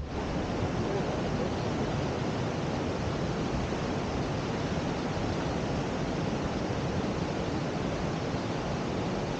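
Krka waterfall in heavy flow after heavy rain: a steady, unbroken rush of falling water.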